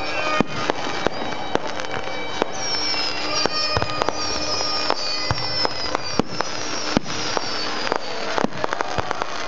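Fireworks display: a rapid run of sharp bangs and crackling pops, with a string of high whistles, each falling in pitch, from a few seconds in until near the end.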